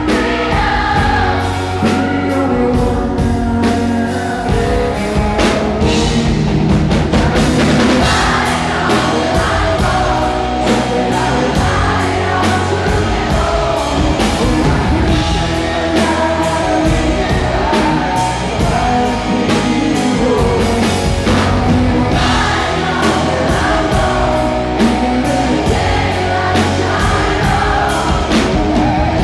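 Live rock performance: a male lead singer sings over his electric guitar and a full band with drums, loud and steady throughout.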